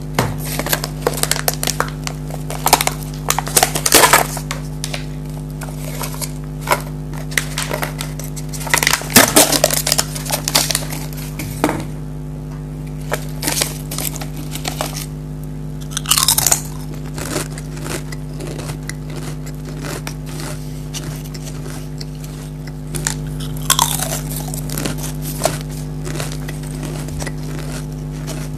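Pringles potato crisps bitten and chewed close to the microphone: irregular, sharp crunches, busiest in the first twelve seconds and sparser later. A steady low hum runs underneath.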